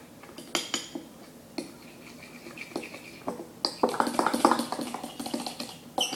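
Utensil clinking and scraping against a food container as a mixture is stirred. There are a few separate clicks at first, then a quick run of clinks from about four seconds in.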